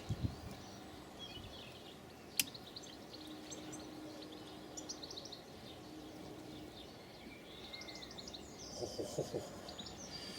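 Small birds chirping in short repeated phrases over faint background noise, with one sharp click about two and a half seconds in and a few soft knocks near the end.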